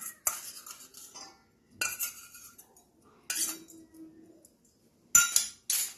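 Steel spoon clinking and tapping against a stainless steel mixing bowl as spices are tipped onto chicken: about five separate clinks, the loudest two near the end.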